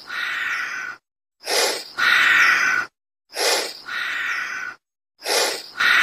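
An animal call repeated about every two seconds. Each call is a short breathy burst followed by a steadier sound about a second long.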